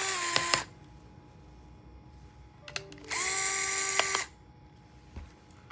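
Electric screwdriver backing out small laptop screws: two short runs of motor whine. The first run ends about half a second in, and the second starts about three seconds in and lasts about a second, with a few small clicks between them.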